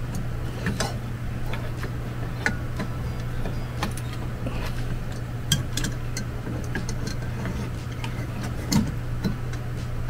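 Irregular sharp plastic clicks and taps as the plastic housing of a ceiling fan is twisted and fitted into place by hand, over a steady low hum.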